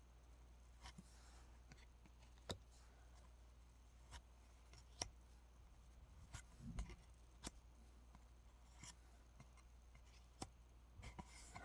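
Near silence with a few faint, scattered clicks and light handling noises of trading cards and their packaging being moved and set down.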